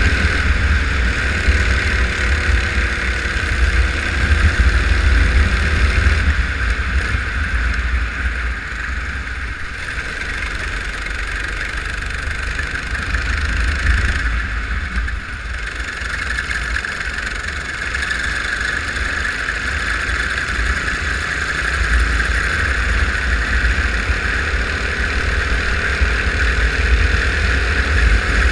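Go-kart engine running at racing revs, its pitch rising and falling with the throttle, under heavy wind buffeting on the microphone. It eases off a little through the middle.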